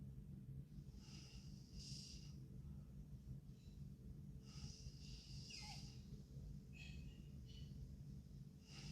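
A sleeping girl breathing faintly in her sleep: several short, wheezy breaths, two of them ending in a high whistle that falls in pitch, over a steady low hum.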